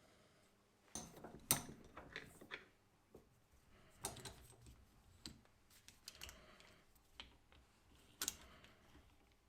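Scattered metal clicks and knocks from handling a brake caliper piston rewind tool and its adapter against the caliper, loudest about a second and a half in and again near the end.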